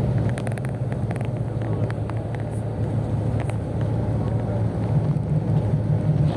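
Steady low drone of a moving road vehicle, with engine and tyre noise heard from inside it, and a few faint clicks.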